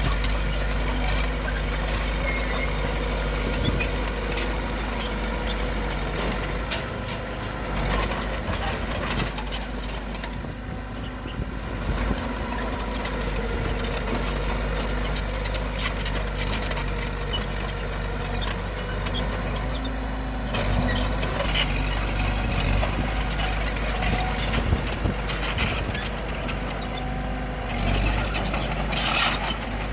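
Bulldozer diesel engine running under steady load, with frequent metallic clanking and clatter from its tracks and the rocks it pushes; the work eases briefly about ten seconds in.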